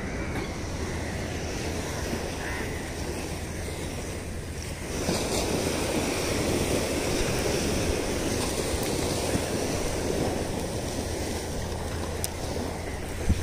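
Small waves washing onto a sandy beach, with wind buffeting the microphone; the wash swells about five seconds in.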